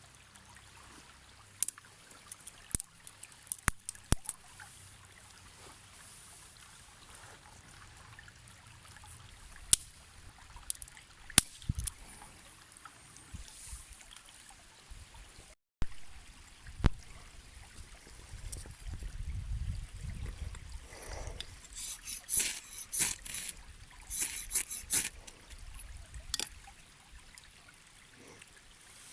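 Mountain stream trickling steadily, with scattered sharp clicks and knocks and a dense run of them about three-quarters of the way through.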